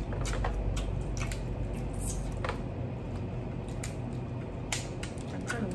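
Crab legs being cracked and pulled apart by hand: scattered sharp snaps of shell with wet squishing of the meat and chewing.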